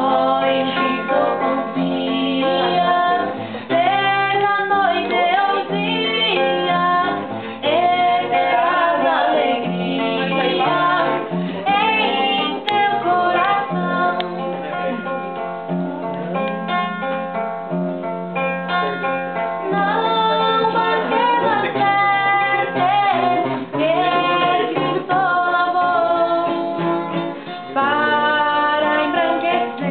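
A woman singing a hymn to plucked guitar accompaniment, with a muffled, bandwidth-limited sound.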